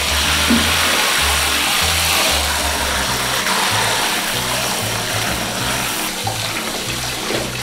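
Handheld shower head spraying water steadily onto a dog in a bathtub, a constant hiss, over background music with a bassline.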